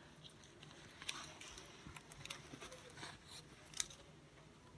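Faint crinkling and scattered clicks of a diamond painting canvas and its plastic cover film being handled, with a few sharper crackles about a second in and near the end.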